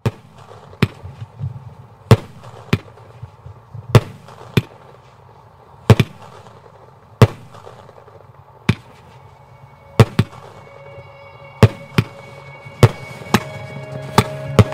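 A series of sharp, loud cracks at irregular intervals, roughly one a second, some in quick pairs. Music fades in under them over the last few seconds.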